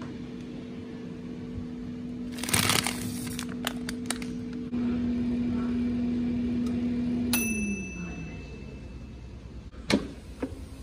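Philips air fryer's fan humming steadily, with a rustle and a few clicks about two and a half seconds in. About seven seconds in, the timer bell dings as the dial runs out and the fan winds down. Near the end, a clack as the basket is pulled out.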